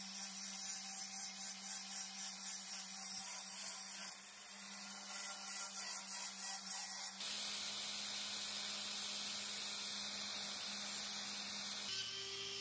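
Steady scratchy hiss of rust being abraded from a steel knife blade, over a faint steady hum. The texture changes abruptly about four and seven seconds in.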